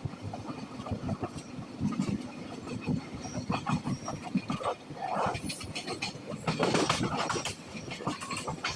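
Express passenger train running, its wheels rumbling and clattering irregularly on the track.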